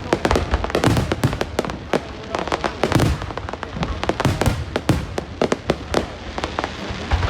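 Fireworks display: dense, irregular booms and crackling, several bangs a second, overlapping with the crackle of bursting shells.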